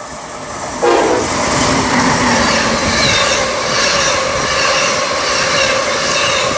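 Amtrak ACS-64 electric locomotive and Amfleet passenger coaches passing at speed. It gets suddenly louder about a second in as the locomotive goes by, with a whine that falls in pitch, then the coaches' wheels clatter and rush over the rails with some high squealing.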